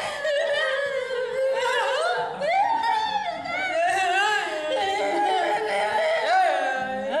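Women's voices in a wordless, improvised vocal piece: high singing that slides up and down with a wavering pitch, held on with hardly a break.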